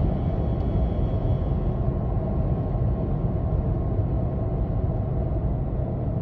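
2016 Toyota Tacoma driving at highway speed, a steady low road rumble with a faint hum in it. The owner is chasing a cyclic humming noise that shows up between 40 and 60 mph, which replacing the driveshaft needle bearing with an ECGS bushing has not cured.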